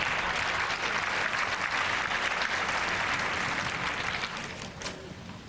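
Tennis crowd applauding at the end of a point, clapping that dies down near the end.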